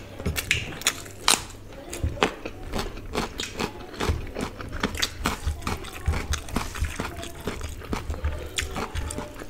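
Close-miked eating sounds: wet chewing and lip-smacking of rice and curry eaten by hand, with fingers squelching as they mix rice on the plate, as a quick series of sharp little clicks and smacks.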